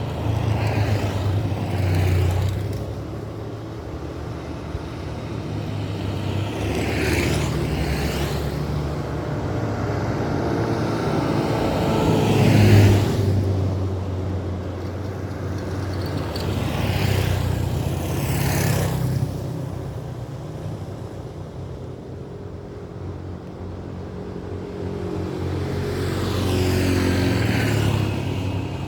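Road traffic: vehicles passing one after another, each swelling up and fading away, over a steady low engine hum.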